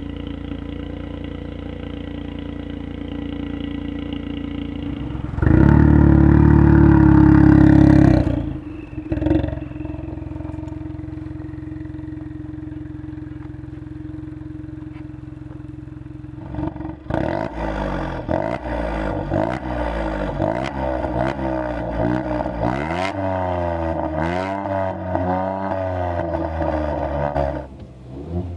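Ford Fiesta 1.0 EcoBoost's turbocharged three-cylinder engine heard through a Martelius race cat-back exhaust, idling steadily. About five seconds in it is revved hard and held for a few seconds, then drops back to idle. For the last ten seconds or so it is blipped up and down repeatedly.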